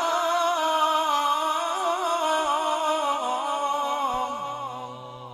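A man's voice sings a long, high-pitched melismatic suluk line through a PA, drawing out 'Rasul…' before 'Allah' with a wavering, ornamented pitch and no instruments, fading away near the end. A low steady tone joins about four seconds in.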